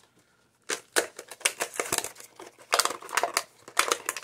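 A HeroClix booster pack being torn open by hand: cardboard ripping and clear plastic bags crinkling in a quick run of sharp crackles and rustles, starting just under a second in after a brief quiet.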